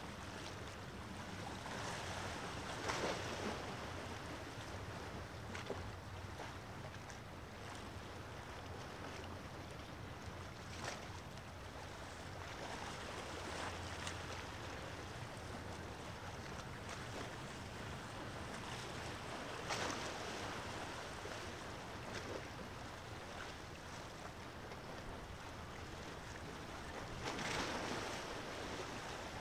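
Small waves washing against the shore every several seconds, over a steady low rumble of wind and open water.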